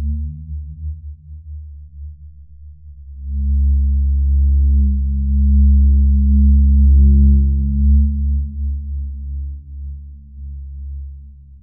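Deep, ominous low drone of a few steady low tones, swelling louder about three seconds in and easing off near the end: a horror-film tension rumble laid over a night-time bedroom scene.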